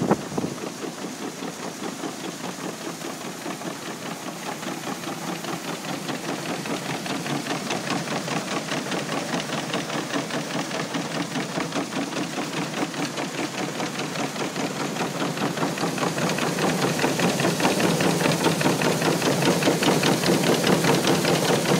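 A Clipper 2B Special grain and seed cleaner running while cleaning wheat. It makes a steady, fast, even rattling rhythm from the shaking screens, over a hiss of moving air and grain, and grows louder after the middle.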